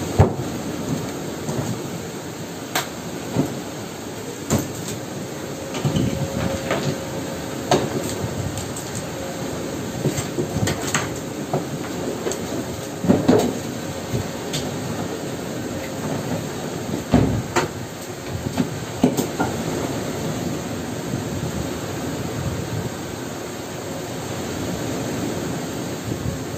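Irregular knocks and clicks of hand work on a boat's steering wheel mount, over a steady rushing background noise.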